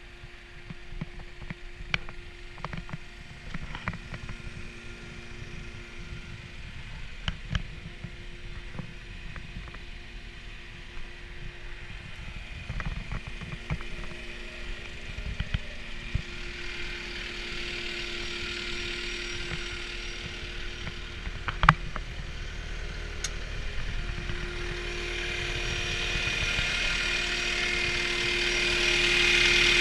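CAT 236D skid steer loader's diesel engine running steadily, with scattered clicks and knocks, one sharp knock standing out about two-thirds of the way in. The engine sound grows louder over the second half.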